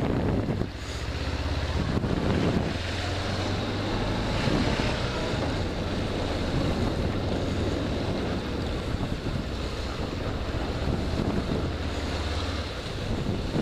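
Wind rushing over the microphone of a moving motorcycle, with the engine's steady low drone underneath.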